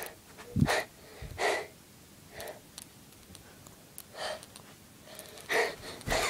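Close, short breaths or huffs, about six of them spaced roughly a second apart, with quiet in between.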